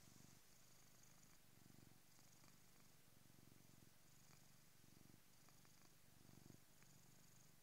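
A domestic cat purring faintly, close to the microphone. The purr comes and goes in stretches of about half a second to a second, with quieter gaps between them.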